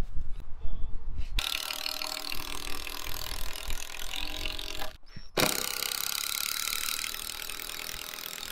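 A mechanical rattling with a steady whirring note, in two stretches of about four seconds each that start and stop abruptly.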